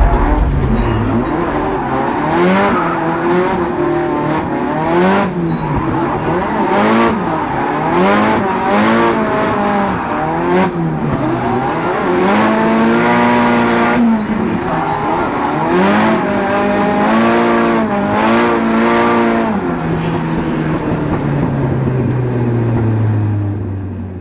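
Drift car engines revving hard, their pitch rising and falling again and again, with tyres squealing. Near the end one engine settles to a lower tone and the sound fades out.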